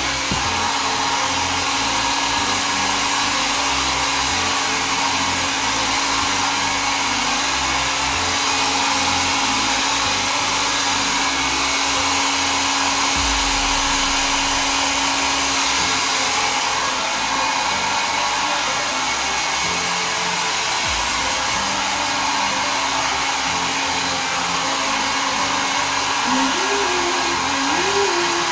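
Nova NV-662 1000 W foldable mini travel hair dryer running steadily on its single on/off setting, blowing hot air: an even rush of air over a constant motor hum.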